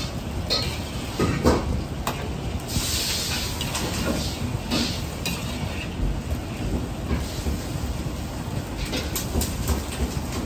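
A gas wok burner runs with a steady low rumble under a carbon-steel wok while beaten eggs sizzle in the oil. A metal ladle scrapes and clicks against the pan as the eggs are stirred, and the hiss swells a few times.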